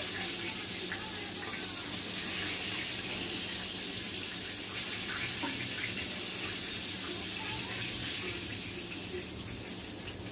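Banga mary fish frying in hot oil in a pot: a steady sizzle with scattered small crackles, easing off near the end.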